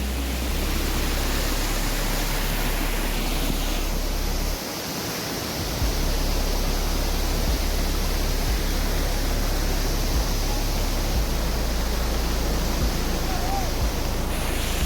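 Waterfall rushing steadily in full monsoon flow after heavy rain, with a low rumble underneath.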